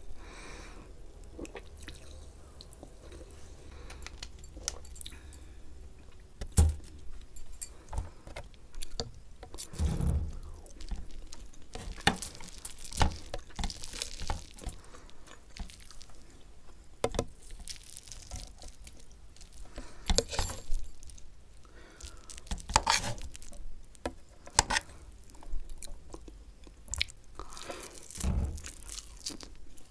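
Close-miked eating sounds: a metal fork clinking and scraping on a plate as fried eggs are cut, in scattered sharp ticks, with chewing of the egg and Maggi noodles between them.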